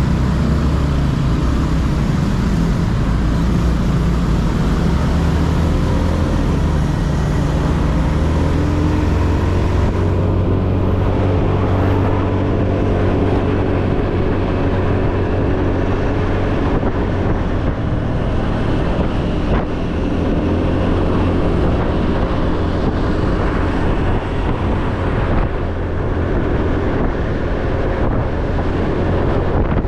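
Motorcycle engine running steadily while riding, with wind rushing over the microphone. The engine pitch shifts gently as speed changes, and the wind rush eases about a third of the way in.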